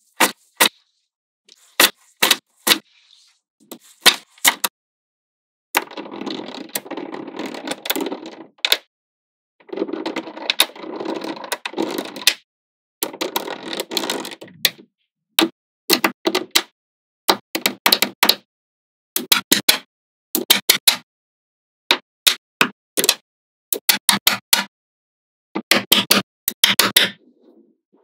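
Small magnetic balls clicking sharply as they snap together, in quick clusters of clicks. About six seconds in come three stretches, each two to three seconds long, of continuous rattling as loose balls clatter against one another.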